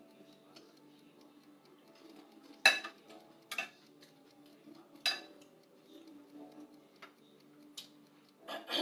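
A utensil clinking against plates and dishes: several sharp clinks a second or two apart, the loudest about three seconds in.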